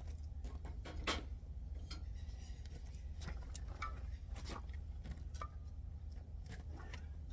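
Scattered light metallic clicks and taps of a screwdriver working at a truck's rear disc brake caliper and pads, the sharpest knock about a second in, over a steady low hum.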